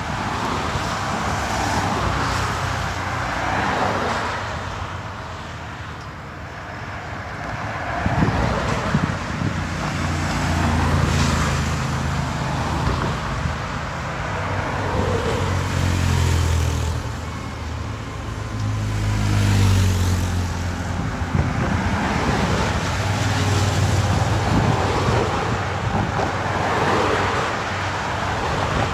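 Cars passing by on the road one after another, each one's engine and tyre noise swelling and fading, with the lowest engine hum loudest about two thirds of the way through.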